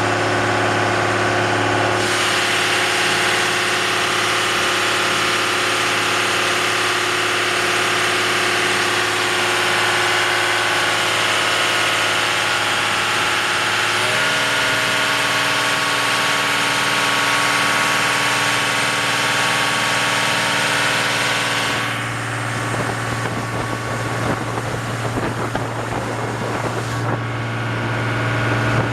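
A boat's engine running steadily. It picks up and sounds brighter about two seconds in, shifts again midway, and drops back quieter in the last few seconds.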